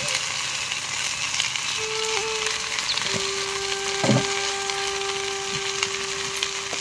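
Chopped okra frying in an iron karahi over a wood fire, with a steady sizzle. A steady tone is held in the background from about three seconds in, and there is one soft knock about four seconds in.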